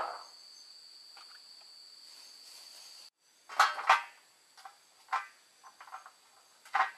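Crickets trilling steadily on one high note for about three seconds. After a break, long green beans are rustled and handled on an aluminium tray in several short, sharp bursts, the loudest just after the break.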